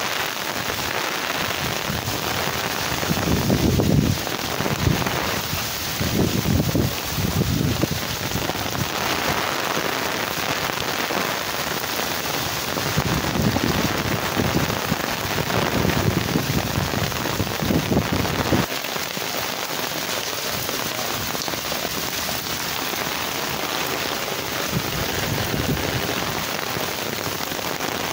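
Heavy rain falling in a steady hiss during a cyclone. Uneven low rumbles swell and fade from about three seconds in until about two-thirds of the way through, then stop.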